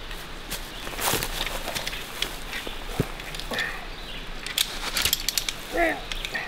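Steel zipline cable and its fittings clicking and knocking irregularly as two people haul it taut by hand, with some rustling.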